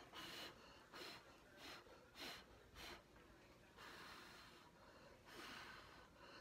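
A person blowing faint puffs of air by mouth: about five short puffs in the first three seconds, then two longer blows. This is the breath used to push wet acrylic paint across the canvas in a Dutch pour.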